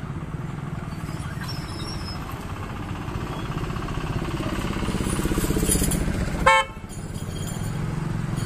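A motor vehicle's engine running, growing louder toward the middle, with a single short, loud honk about six and a half seconds in, after which the level drops abruptly.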